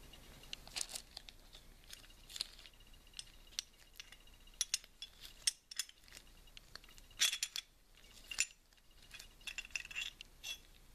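Sharp, irregular metallic clicks and clinks of the SVT-40's steel bolt and bolt carrier being worked apart by hand, the bolt pushed forward to free its lugs and slid back out of the carrier.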